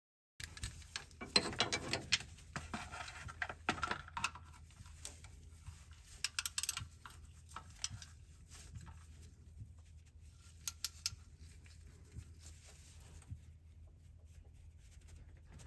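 Socket and ratchet clinking and scraping against metal while an oil filter housing bolt is threaded in and tightened. Irregular clicks and scrapes come thickest in the first few seconds, with short runs of clicks about six and a half and eleven seconds in.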